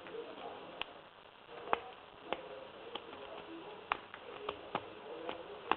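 Lock pick and tension wrench working the pins of a TESA T5 lock cylinder: scattered sharp metal clicks at irregular intervals, with faint scraping in between, as pins are set. The cylinder's pin tips are badly worn.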